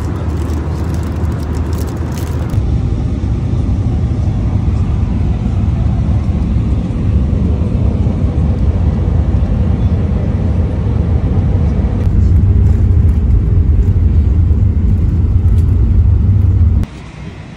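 Steady loud rumble of a jet airliner's engines and rushing air heard inside the cabin. It grows louder about three quarters of the way in as the plane rolls down the runway after landing, then cuts off suddenly near the end.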